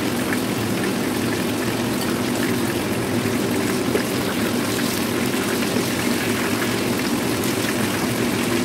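Breaded fish deep-frying in hot oil in a wok, a steady sizzle with a steady low hum underneath.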